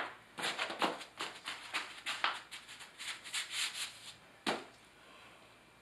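Laticrete Hydro Ban sheet membrane rustling and scraping as a gloved hand rubs it down onto the shower floor, in a run of quick strokes. There are sharp knocks at the start and about four and a half seconds in.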